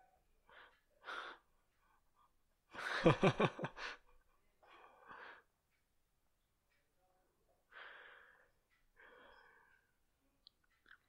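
A person laughing briefly about three seconds in, a quick run of 'ha' pulses, with quieter breaths before and after.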